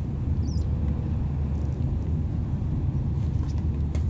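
Low, steady rumble of a passing ship's engine.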